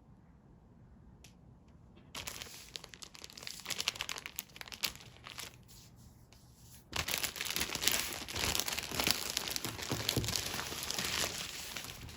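Packaging crinkling and tearing as a parcel is unpacked by hand, in two spells: a first bout of rustling about two seconds in, a short lull, then a louder, longer stretch of crinkling and ripping.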